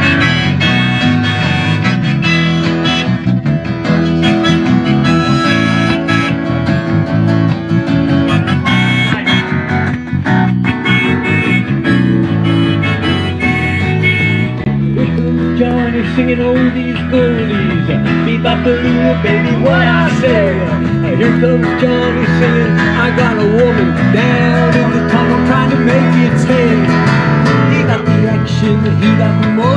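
Live guitar duo playing, an electric guitar and an acoustic guitar together. About halfway through, a wavering lead melody line comes in over the guitars.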